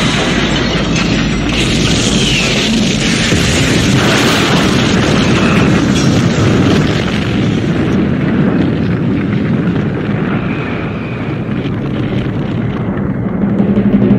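Continuous explosion rumble, a sound effect of the starship Enterprise blowing apart in its self-destruct. The top end thins out after about eight seconds.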